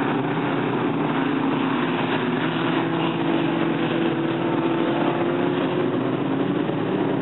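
Dirt-track race cars running together on the oval, a steady blend of several engines at once with their pitches shifting slowly.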